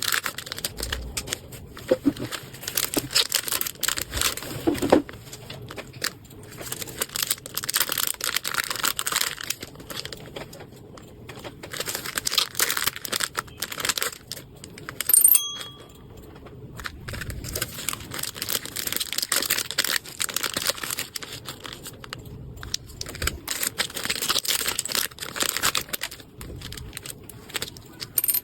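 Packaging being unwrapped by hand, crinkling and rustling in irregular bursts. There is a brief short tone about fifteen seconds in.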